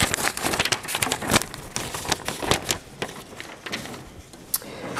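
Quick, irregular clicks and rustling from things being handled at the lectern close to the microphone, thinning out after about three seconds.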